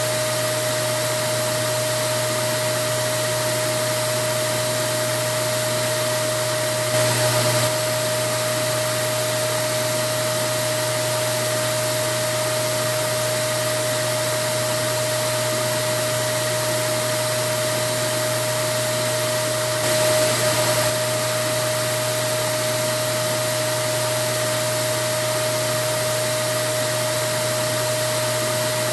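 Vacuum cleaner running steadily: an even rushing noise with a constant whine, swelling slightly louder twice, briefly, about seven and twenty seconds in.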